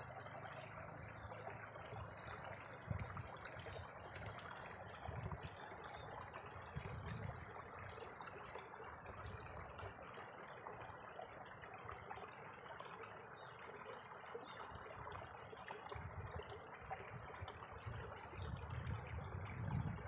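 Steady rush of running water, with irregular low thumps of wind buffeting the microphone that grow stronger near the end.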